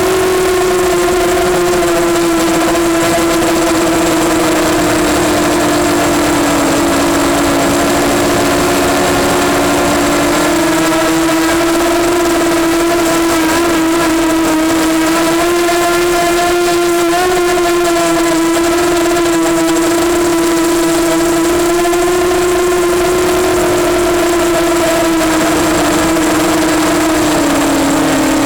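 EMax Nighthawk 250 quadcopter's brushless motors and propellers whining in flight, a steady buzzing hum whose pitch drifts gently up and down with the throttle.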